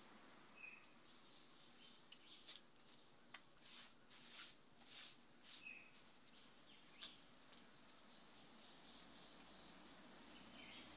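Faint, irregular swishes of broom bristles sweeping a tiled floor. Two short bird chirps and a single sharp tap about seven seconds in.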